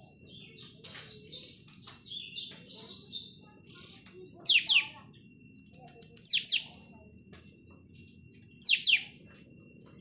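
Caged olive-winged bulbul (kapas tembak) singing. A run of quick, scratchy chattering notes comes first, then three loud, sharp whistles that sweep steeply down in pitch, a second or two apart. These are the 'tembakan' shots that keepers prize.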